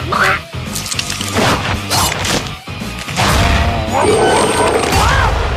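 Cartoon transformation sound effects over a dramatic music score: a run of sharp crashes and whacks in the first half, then wavering, warbling tones with a low rumble underneath in the second half.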